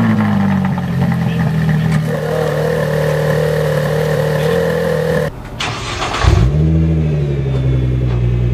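A Ferrari 458 Italia's V8 idling steadily just after starting, cut off abruptly about five seconds in. Then a Nissan GT-R's twin-turbo V6 fires up with a short rev flare and settles to a fast idle.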